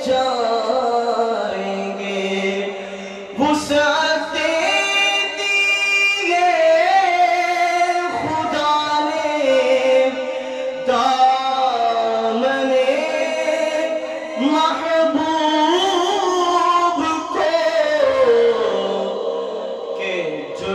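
A man singing a naat, an Urdu devotional song in praise of the Prophet, in long drawn-out notes that bend and waver in pitch, with a brief break about three seconds in.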